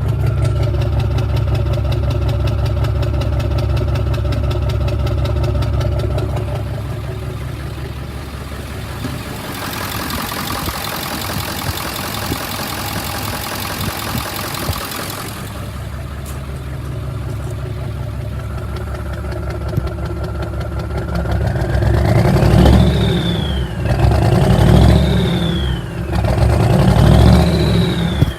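Ford 7.3 Power Stroke V8 turbo-diesel running at idle with a misfire, which the scan tool puts on cylinders 2, 4 and 8 even though the injector buzz test passes. A hiss comes in for several seconds in the middle. Near the end the engine is revved three times, each with a rising and falling whine.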